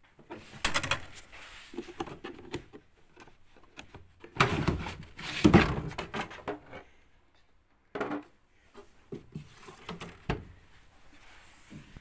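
Plastic lower access flap of a Samsung tumble dryer being pulled open and handled: a run of clunks and rattles, loudest about four to six seconds in, with single knocks later.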